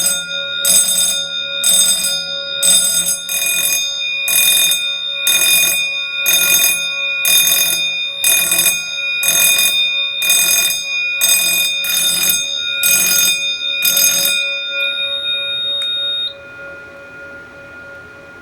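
A Wheelock 6-inch fire alarm bell ringing in march-time code, 60 beats a minute: short loud bursts of ringing about once a second. The bursts stop about fourteen seconds in, and the gong's ringing tone hangs on for a couple of seconds after.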